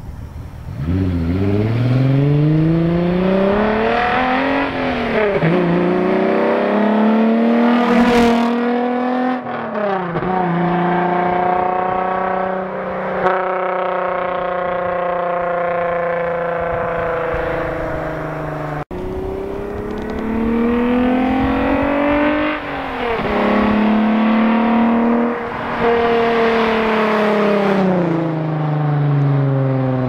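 12-valve VR6 engine accelerating hard through the gears: the engine note climbs in pitch, drops at each upshift and climbs again, holds steady for several seconds midway, then climbs through three more gears and falls away near the end.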